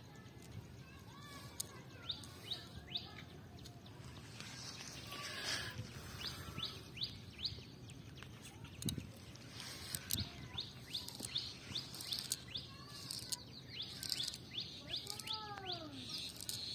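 Small birds chirping: runs of quick, sharply falling high notes repeated many times, with lower arching calls near the end, over outdoor background noise and scattered light clicks.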